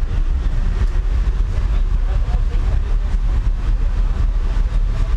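Chevrolet Astra's competition car audio system playing loud during a 30-second sound-quality and SPL measurement run, with heavy, steady bass dominating.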